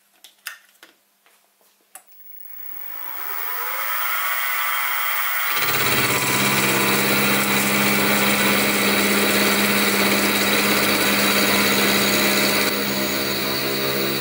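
A few clicks of the set-up being handled, then the Sieg SX2P mini-mill's spindle motor starts and winds up with a rising whine. A few seconds in, the end mill bites into the metal bar and a steady, loud milling noise with a deep hum underneath carries on.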